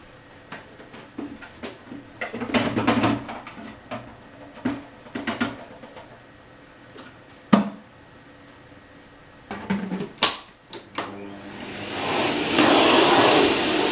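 Plastic clicks, rattles and knocks as the full dust bin of an Electrolux UltraFlex bagless canister vacuum is handled, with two sharp snaps. Near the end the vacuum's motor starts and its airflow rush swells steadily.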